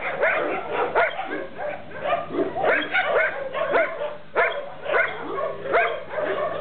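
Several shelter dogs barking over one another, several barks a second without a break.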